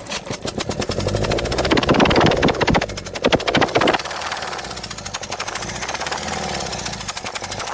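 Hyundai Getz engine turned over by its starter motor with the injectors out on their fuel rail, a fast, even beat that is louder for a couple of seconds near the start. This is a test of whether the injector for cylinder number one fires.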